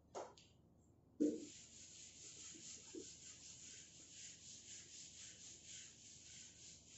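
A whiteboard duster wiping marker writing off a whiteboard: a faint, rhythmic rubbing hiss in steady back-and-forth strokes. A brief knock about a second in comes just as the wiping starts.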